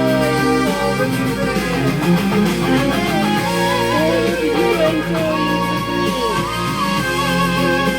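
Background music: an instrumental passage of a Ukrainian song, with guitar and a wavering melody line over steady sustained chords.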